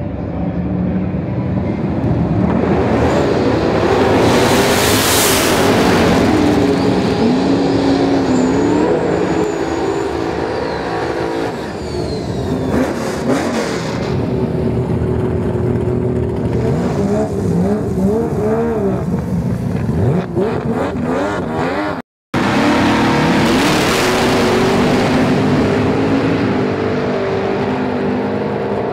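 Drag-racing car engines revving hard and launching, loud and continuous, with the engine pitch climbing and falling as the cars accelerate. The sound cuts out completely for a split second about 22 seconds in.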